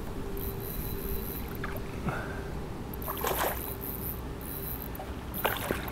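Water splashing and sloshing, with a couple of short splashes about halfway and near the end, as a hooked mirror carp is drawn in toward the bank, over a steady low rumble.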